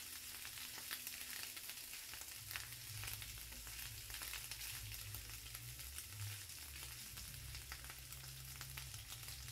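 Crumbled chorizo sizzling in hot oil in a frying pan, with a steady hiss and many small crackling pops over a low rumble, stirred now and then with a spatula.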